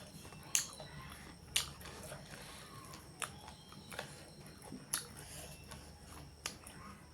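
A person chewing and biting chicken curry close to the microphone, with sharp wet mouth clicks and smacks at irregular intervals, about six of them.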